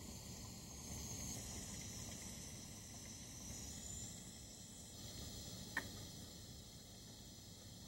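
Faint steady hiss from a dial-gauge pressure canner heating with its weight on the vent port and building pressure, with one short click about six seconds in.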